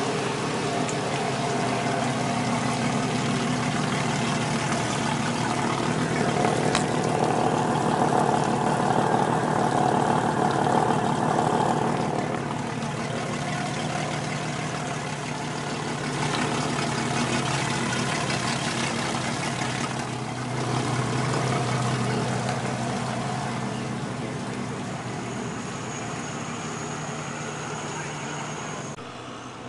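Twin Yamaha 225 hp four-stroke outboards idling steadily out of the water, run on a flushing hose, with water splashing off the lower units.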